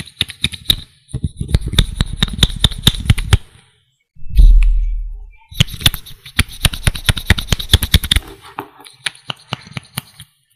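Close-miked ASMR tapping and handling of a lip tint bottle: rapid fingernail clicks and taps in two dense runs. A heavy low thump on the microphone comes about four seconds in, and the clicks thin to a few scattered taps near the end.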